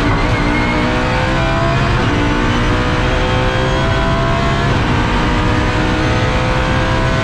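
Audi R8 LMS GT3's naturally aspirated V10 at full throttle, heard from inside the cockpit, pulling hard through the gears. Its pitch climbs and drops back at each quick upshift.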